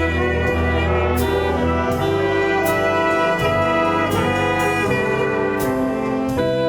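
Instrumental music played by a brass and woodwind ensemble, with trumpets and saxophone holding chords over a low bass line and a light beat.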